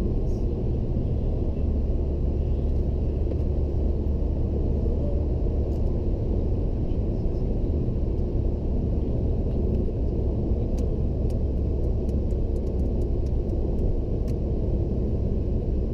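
Steady low rumble of road and tyre noise heard inside a car's cabin at motorway speed, with a few faint ticks in the second half.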